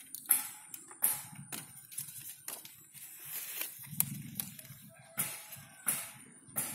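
Hand thinning the flower buds of a water apple tree: a series of sharp snaps and leaf rustles close by, roughly two a second.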